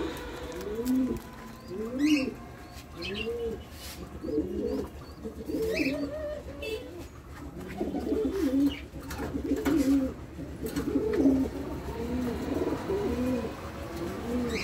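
Many domestic pigeons cooing together, arched low coos overlapping one after another throughout, with occasional higher chirps and sharp clicks.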